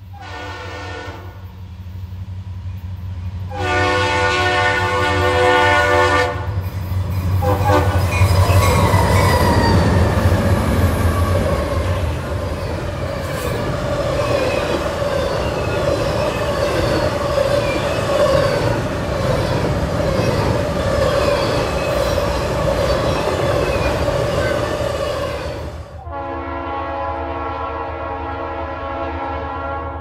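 Leslie RS3L three-chime locomotive air horn sounding a short blast, then a long one, at a grade crossing. The locomotive and a double-stack intermodal freight train then roll past with loud rumbling wheel and rail noise and a steady ringing tone. Near the end another RS3L horn starts a long blast.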